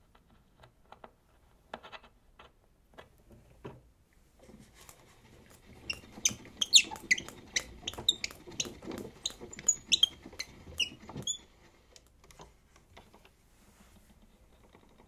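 Tone arm and soundbox of a portable wind-up gramophone being handled, metal parts turning in their joints. A few light clicks come first. From about five seconds in there is a busy run of high squeaks and clicks, which stops about eleven seconds in.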